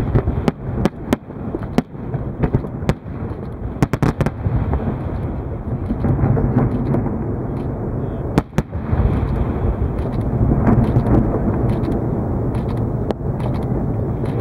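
Fireworks display: a quick run of sharp bangs and crackles for the first few seconds, then a denser, continuous rumble of bursts, with two loud bangs about eight seconds in.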